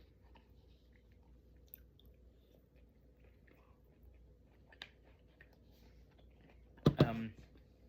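Quiet chewing, with small wet mouth clicks while eating. Near the end comes a short, loud burst from the voice.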